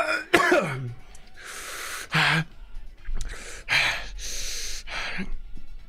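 A man gasping and groaning in pain from the burn of an extremely hot sauce: a cry falling in pitch at the start, then a string of sharp, hissing gasps for air broken by short groans.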